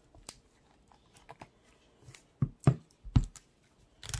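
A tablet and its cardboard packaging being handled on a table: a few short knocks and taps, the loudest three close together in the second half.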